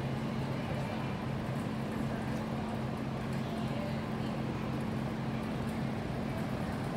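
Steady low mechanical hum, as of a large fan or ventilation running, over a faint even background noise.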